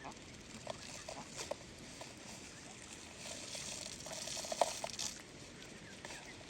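Wild ducks dabbling and paddling in shallow water, making light splashing and pattering with a few short soft clicks from their bills.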